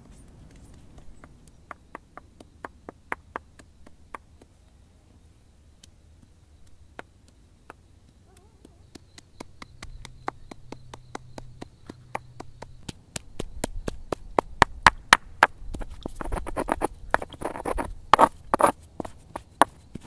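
Hand-held river stone knocking on acorns against granite bedrock, light, spaced taps at first, then quicker and louder at about four a second. In the last few seconds it turns to rough crushing and rubbing as the stone grinds the acorn meat on the rock.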